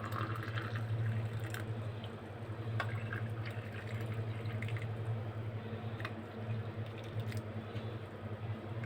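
Guava-leaf tea being poured into cups: the pour trails off about half a second in, then come faint drips and a few light clicks of the cups, over a steady low hum.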